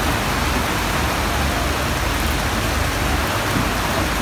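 Pouring rain: a steady, even hiss.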